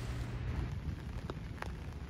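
Steady rain falling on foliage: an even hiss, with a couple of sharper drips about a second and a half in.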